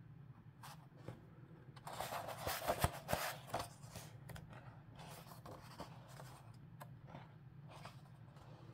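Pages of a hardback book being turned by hand: paper rustling and sliding, loudest from about two to three and a half seconds in, then lighter rustles and soft clicks of the pages.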